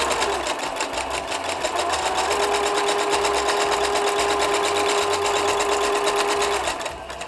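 Singer Patchwork sewing machine with a walking foot fitted, running steadily and sewing a serpentine stitch through quilted flannel: rapid, even needle strokes over a steady motor hum. It stops near the end.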